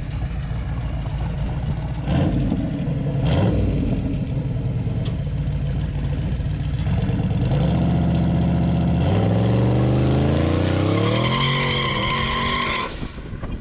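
Twin-turbo LS V8 in a square-body Chevy C10 pickup pulling away at about quarter throttle, its revs climbing over a few seconds. Near the end the tires squeal as they spin on the concrete, then it cuts off suddenly.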